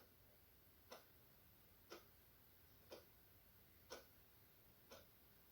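Near silence with a clock ticking faintly, about once a second.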